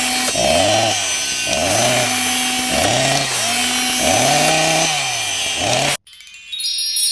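A loud added sound effect of rhythmic back-and-forth strokes, each rising and falling in pitch, about one a second, which stops abruptly near the end. A brief high ringing tone follows.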